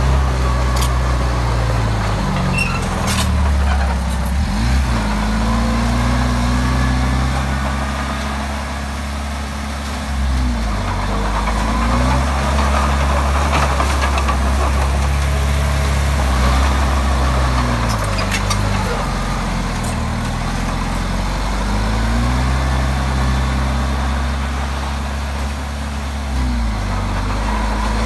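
Komatsu D20P bulldozer's diesel engine working, its pitch dropping and recovering every few seconds as the load comes on and off, with clatter from the machine over it.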